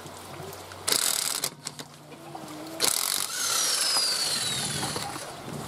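Air hissing at a car's front tire: a short hiss about a second in, then another near three seconds that runs on as a longer hiss with a thin, slowly falling whistle.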